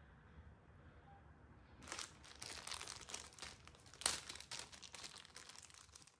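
Small clear plastic packet crinkling and crackling as it is handled and opened, starting about two seconds in, with the loudest crackle about four seconds in.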